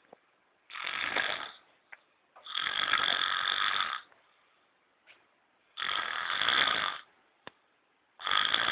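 A sleeping man snoring loudly in harsh, grunting snores, four of them about every two and a half seconds, each lasting about a second.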